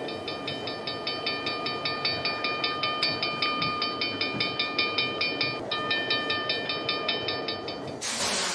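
Steam locomotive sound effect: a steady chugging of about six beats a second with a held tone over it, ending in a loud burst of hissing steam near the end.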